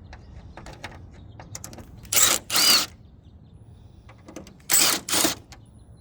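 Ratchet wrench clicking in two pairs of short, quick bursts, with lighter clicks and knocks between them, as the bolts holding the truck's corner light assembly are loosened.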